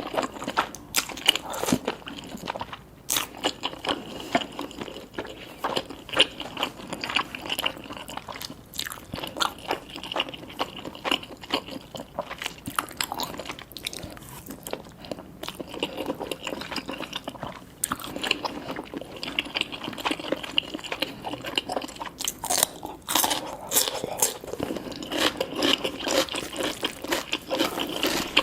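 Close-miked mukbang eating sounds: wet slurping and chewing of cheesy instant noodles, with irregular sharp pops and crunches that fit tobiko (flying fish roe) bursting between the teeth.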